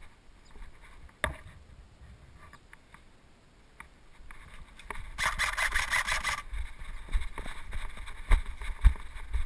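Airsoft gun firing a burst of rapid shots for about a second and a half, a little past the middle, with a single sharp click earlier and low thumps of movement and wind after it.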